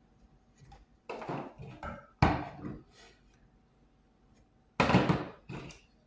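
Wooden workpieces and tools being handled and set down on a workbench: several separate knocks and clatters, the loudest a sharp knock a little over two seconds in and a cluster near the end.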